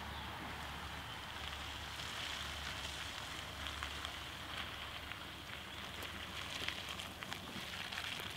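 Minivan tyres rolling slowly over a wet gravel track, a steady hiss with many small crackles and pops from the stones, denser in the second half as it comes close.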